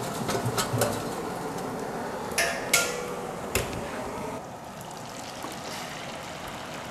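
Hot oil sizzling steadily in a deep-frying kadai. In the first half there are several sharp metal clinks and taps, the loudest near the middle, as a wire-mesh strainer of fried snacks knocks against a steel tray.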